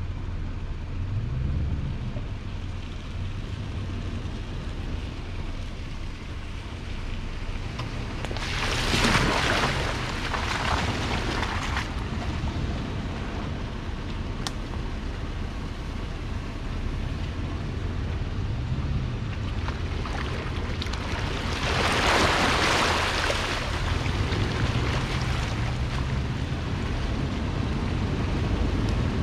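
Off-road vehicle's engine running at low trail speed, with a few slow rises in its hum. Two swells of rushing noise come over it, about nine seconds in and again about twenty-two seconds in.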